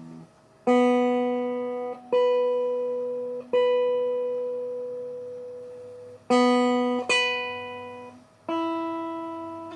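Single notes plucked on a Telecaster-style electric guitar, each left to ring and fade: a note, then the same note an octave higher, repeated. This is the open-string-versus-12th-fret comparison used to check the bridge saddle intonation. Near the end a different, higher string is plucked.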